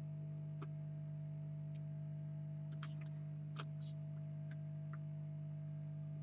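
Steady low electrical hum with a handful of light, irregular clicks and ticks, the kind made by handling small computer parts and tools, clustered in the middle of the stretch.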